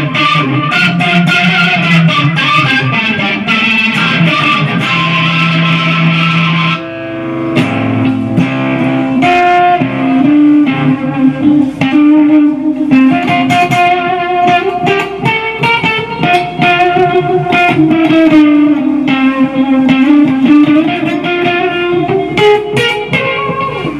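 Modified Kazuki Baby 1 mini electric guitar played through an EVH 50-watt amp head and a multi-effects unit, heard live through the speaker cabinet. It plays dense riffing at first, then the tone changes abruptly about seven seconds in and the guitar moves into melodic single-note lines.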